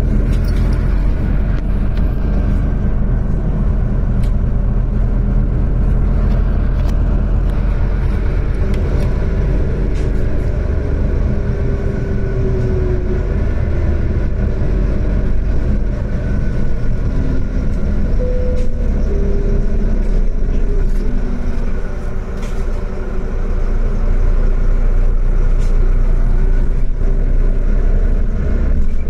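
City bus engine and drivetrain running, heard from inside the passenger cabin as the bus drives through town. A whining tone shifts in pitch as the bus changes speed, and the running gets louder for the last few seconds as it pulls ahead.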